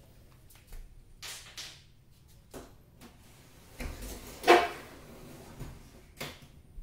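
A few scattered knocks and scrapes of tools and objects being handled, the loudest a sharp clunk about four and a half seconds in.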